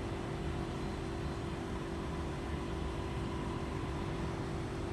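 Steady mechanical hum and low rumble with a constant low drone, unchanging throughout.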